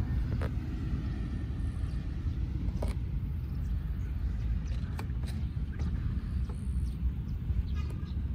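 Wind buffeting the microphone outdoors: a steady, uneven low rumble, with a few faint light clicks.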